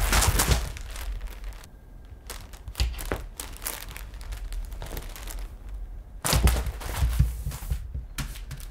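A cat shoving and pouncing on a cardboard scratching pad, sliding it over a shag rug and a wooden floor: scraping, rustling and light thumps in irregular bursts, loudest at the start and again about six to seven and a half seconds in.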